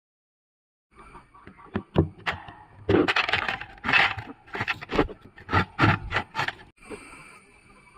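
Irregular knocks, clatter and scraping, about a dozen sharp strokes over some six seconds, as of hard parts being handled and struck. Near the end it gives way to a faint, steady high-pitched tone.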